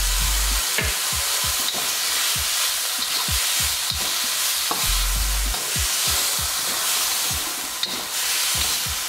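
Chicken and sauces sizzling in a hot wok, with a spatula stirring and scraping against the metal in many quick strokes. Two dull low thumps, one at the start and one about five seconds in.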